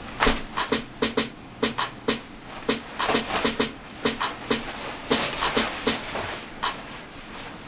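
A string of short, quick vocal sounds made by mouth, several a second in an uneven rhythm, in a small room.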